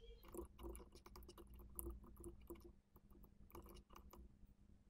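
Near silence: faint, irregular computer mouse clicks over a low steady electrical hum.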